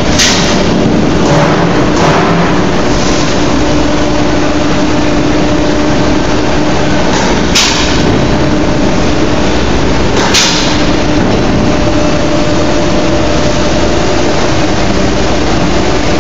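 Loud, steady factory machinery noise with a constant hum, and two sharp clicks a few seconds apart about halfway through.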